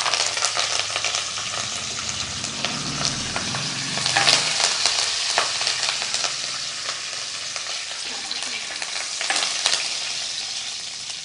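A tempering of chana dal, urad dal, cumin and mustard seeds sizzling in hot oil in a kadai, with frequent crackles as curry leaves go in and a spoon stirs it.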